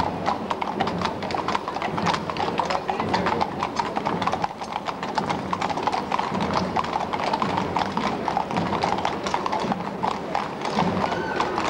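Many horses' hooves clip-clopping on a paved street as a mounted column passes at a walk: an overlapping, uneven clatter of hoof strikes.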